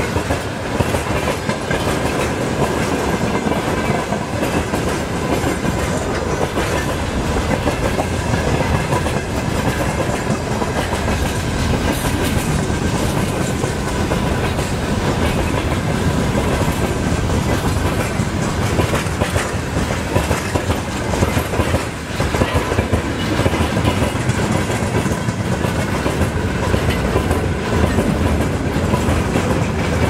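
Freight train's wagons rolling past at speed: continuous loud wheel-on-rail noise with a clickety-clack rhythm and a faint steady whine above it.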